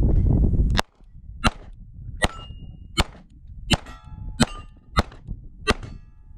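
Beretta 92 9mm pistol fired eight times, about one shot every 0.7 seconds, at steel targets. Several shots are followed by the short ring of a hit steel plate.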